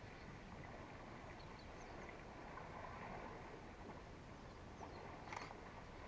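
Faint bush ambience: a steady low background hiss and rumble, with a few faint, brief bird chirps and one short, sharper sound about five seconds in.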